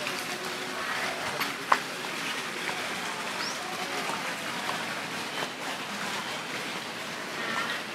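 Outdoor ambience: a steady hiss of background noise with faint chirps, and one sharp tick about a second and a half in.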